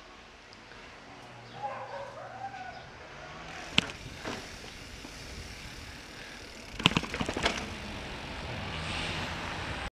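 Giant Reign mountain bike rolling over pavement, with sharp rattles and knocks from the bike over bumps: one about four seconds in, and a quick cluster around seven seconds. A hiss of wind noise on the microphone grows as the bike speeds up, and the sound cuts off abruptly near the end.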